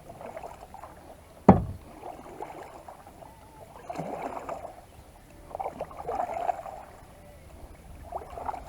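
Kayak paddle strokes: the blades splash and swish through the water every couple of seconds. One sharp knock about a second and a half in is the loudest sound.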